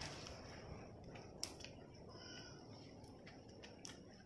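Faint rustle of dry leaves pressed flat by hand, with a couple of soft crackles; otherwise near silence.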